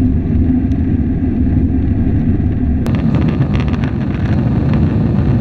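Jet airliner engines at takeoff thrust heard inside the cabin: a loud, steady low rumble. About three seconds in, a cut with a click brings the hissier cabin noise of the climb.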